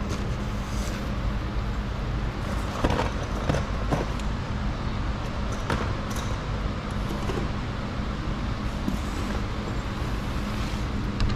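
Steady low hum in the background, with a few light clicks and knocks from hand work on the car's plastic trim, a cluster about three seconds in and another near six seconds.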